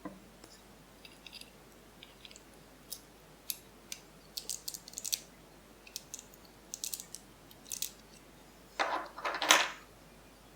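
Lock pick working the pins of a 1970s Soviet high-security tubular-style pin-tumbler lock, held under tension by a tension tool: irregular clusters of small metallic clicks and scratches, with a louder, longer burst near the end.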